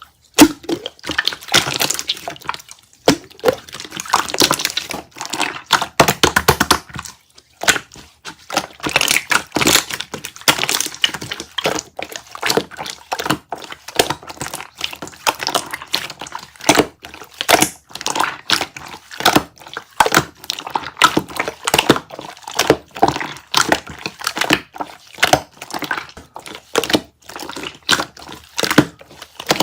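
Slime being squished and pressed, making a dense, irregular stream of sticky pops and clicks with a few short pauses.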